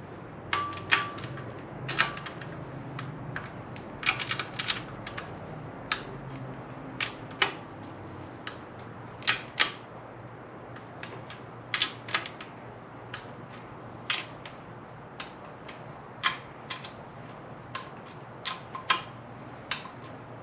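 Click-type torque wrench clicking again and again as bolts in an engine bottom end are checked at torque, each click sharp and separate, some in quick pairs, with light metal tool clinks between.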